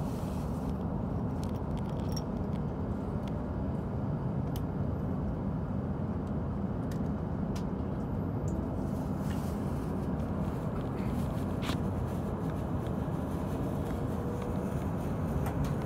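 Cabin noise of an E7 series Shinkansen pulling out of a station and gathering speed: a steady low rumble with a few faint clicks, and a faint rising whine that begins near the end.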